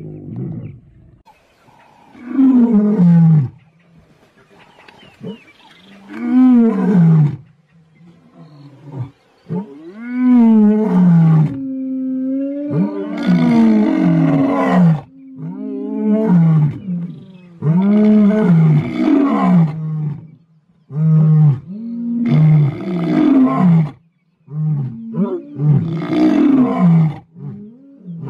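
Lion roaring in a long bout: a few long roars, each falling in pitch and spaced a few seconds apart, then from about halfway a quicker run of shorter roars one after another.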